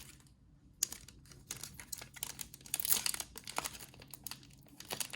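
Kaldheim set booster pack's foil wrapper crinkling and tearing as it is pried open by hand, with a struggle, in scattered crackles starting about a second in.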